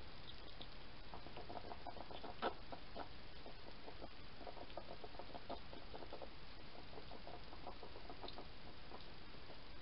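Hedgehog chewing dry food, a run of quick, irregular wet smacks and crunches, with one sharper click about two and a half seconds in.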